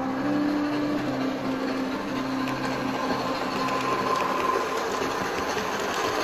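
Model train running past: the steady whirr of the locomotive's electric motor with the coaches' wheels rumbling on the track, and a faint whine about four seconds in. Fading background music is heard over the first few seconds.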